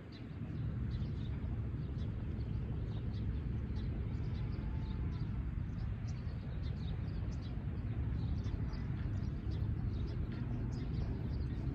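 Small birds chirping in many short, high calls throughout, over a steady low rumble.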